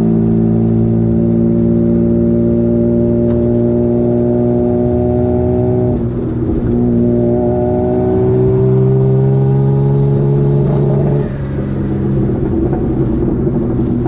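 Turbocharged Mazda MX-3 rear engine held at high, fairly steady revs. The pitch dips about halfway through, climbs slowly, then drops and turns rougher near the end.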